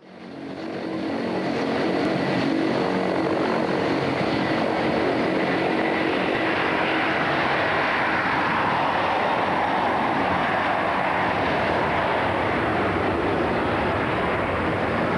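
Airbus A330-200 jet engines at takeoff power during the takeoff roll and lift-off: loud, steady jet noise that fades in over the first second or so, with a whine that slides lower in pitch past the middle as the aircraft passes.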